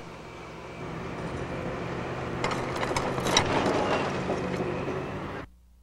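Caterpillar hydraulic excavator engine running steadily while its boom pushes over a tree, with a burst of crackling and snapping of wood and branches about halfway through. The sound cuts off suddenly near the end.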